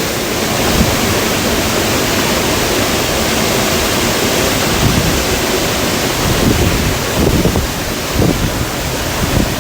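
Waterfall rushing: a loud, steady noise of falling water, with irregular low buffeting as of wind on the microphone.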